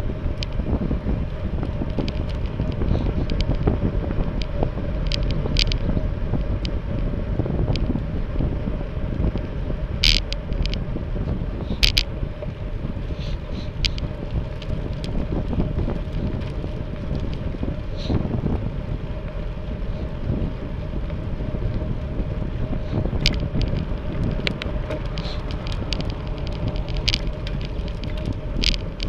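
Wind buffeting the microphone of a camera carried on a moving road bicycle: a steady low rumble. Sharp clicks and rattles are scattered through it, the loudest about ten and twelve seconds in.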